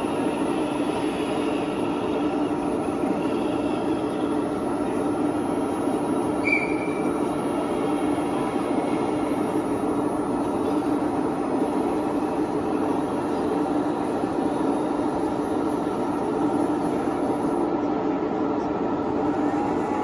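Steady mechanical running of a scale remote-control bridge-layer tank's drive as its scissor bridge slides out over the hull, with a brief squeak about six seconds in.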